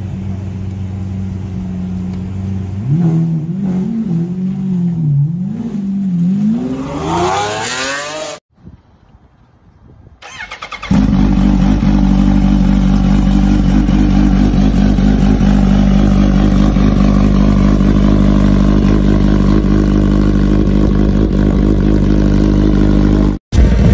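A Lamborghini Aventador's V12 runs steadily, then is blipped a few times and revved up in a rising note that cuts off about eight seconds in. After a short quiet gap, a Kawasaki Ninja H2's supercharged inline-four runs loudly at a steady, unchanging pitch.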